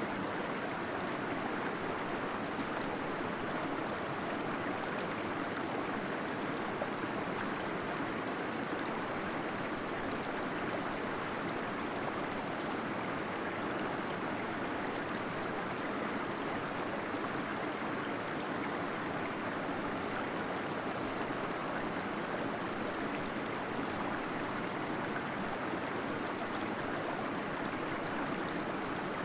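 Water falling and flowing steadily, a constant even rush with some gurgling, from a small waterfall inside a cave.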